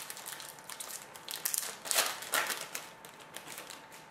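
Foil wrapper of a hockey trading-card pack crinkling as it is handled and opened, in irregular crackles that are loudest about two seconds in.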